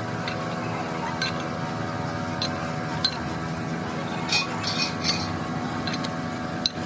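Scattered light metallic clinks of metal parts and tools being handled, over the steady hum of a running workshop machine.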